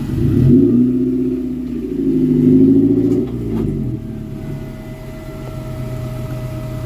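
A four-wheel-drive's engine revving up and down twice, working against an off-road obstacle, then dropping back to a steady idle about four seconds in.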